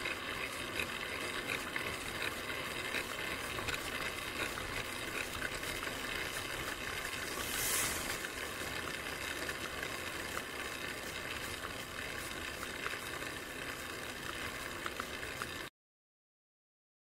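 Road and wind noise from a bicycle-mounted rear camera while riding, with light rattling clicks from the bike. About eight seconds in, a short swell of hiss as a car overtakes close. The sound cuts off abruptly near the end.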